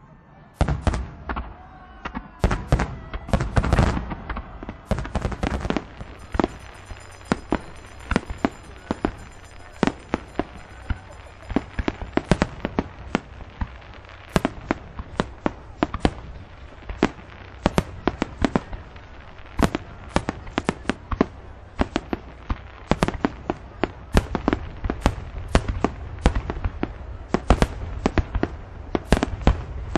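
Aerial firework shells bursting in rapid succession: a dense volley of sharp bangs with low rumbling booms in the first few seconds, then a steady run of bangs, several a second.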